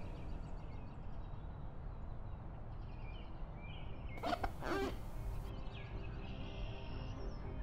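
Outdoor ambience: a steady low rumble with small birds chirping now and then. A little over four seconds in comes a loud burst of noise, about a second long, with a pitch that sweeps up and down.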